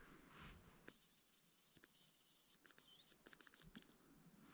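Hazel grouse decoy whistle blown in the male's song: a very high, thin whistle held for about a second, a second long note, then a quick run of short notes with a brief dip in pitch.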